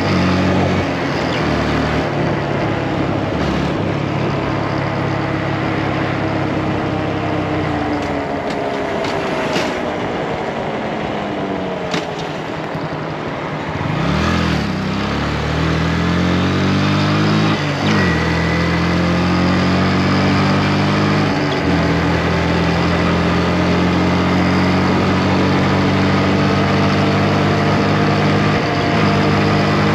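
Motorcycle engine running under way, its note sinking as the bike slows through the middle, then climbing again as it picks up speed, with short breaks in the note at gear changes.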